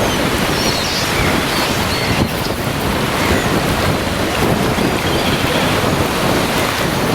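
Caspian Sea waves breaking and washing on the shore, a steady rush of surf, with wind buffeting the microphone.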